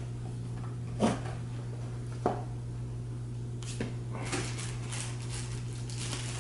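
Packaging and accessories being handled during an unboxing: two sharp knocks of items set down on a table, then a few seconds of rustling and crinkling of packaging.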